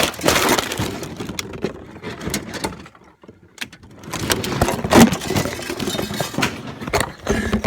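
Repeated bangs, crashes and clattering of objects being knocked about and smashed, with a brief lull about three seconds in and heavy hits near the middle and the end.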